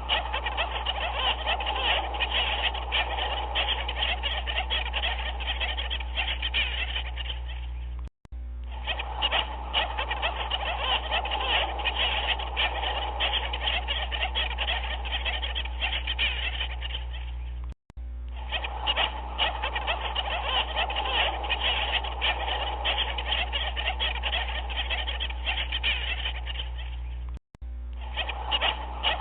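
A looped recording of a dense chorus of many animal calls overlapping, over a steady low hum. It cuts out for an instant three times, about every ten seconds, as the loop restarts.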